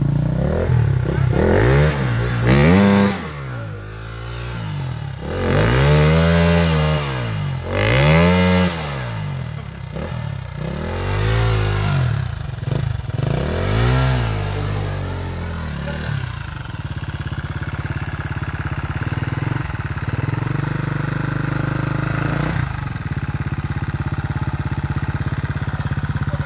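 Dirt bike engine revved in a string of short throttle blips, its pitch rising and falling every second or two, then settling into a steady idle for the last ten seconds or so.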